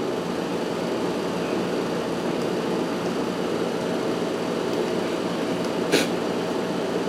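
Steady mechanical hum like a fan or air conditioner running, with one short sharp click about six seconds in.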